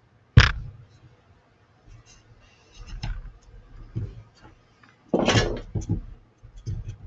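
Craft tools handled on a tabletop: a sharp knock about a third of a second in as things are set down, then softer taps and scraping, with a longer scrape about five seconds in as a metal ruler is shifted against a wooden sign, and a few small clicks near the end.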